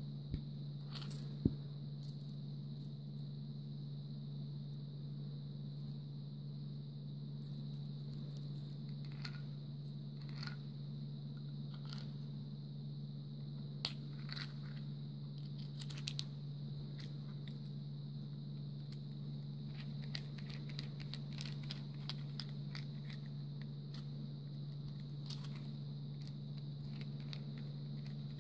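Small scattered clicks and taps from handling a butane torch lighter and its small plastic parts, over a steady low hum.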